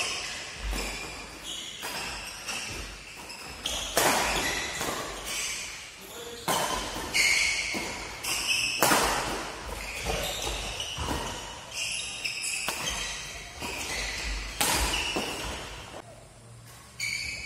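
Badminton rackets striking a shuttlecock during a fast doubles rally, a sharp smack roughly every second, each echoing briefly in a large hall.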